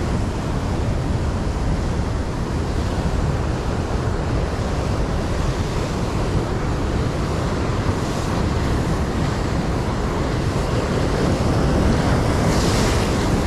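Rough sea surf breaking and washing over shore rocks, with wind buffeting the microphone. A brief louder hiss comes near the end.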